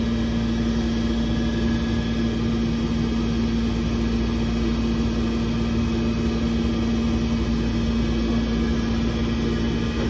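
Steady drone of running machinery, with a strong constant low hum.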